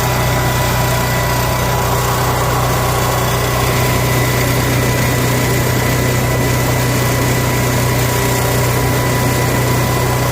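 Onan Microlite 4000 RV generator engine running steadily with no load on it, freshly started to warm its oil up for draining: a constant low hum with a thin, steady whine above it.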